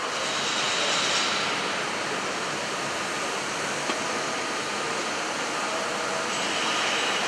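Droop & Rein D 175 v horizontal boring and milling machine running, a steady even mechanical whir with a hiss.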